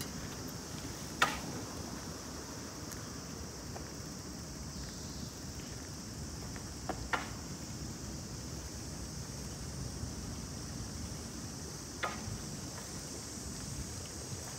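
Outdoor ambience: a steady high-pitched hiss over a low rumble, broken by a few short sharp clicks about a second in, twice around seven seconds, and once near twelve seconds.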